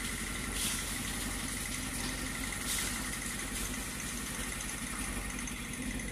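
A motor running steadily.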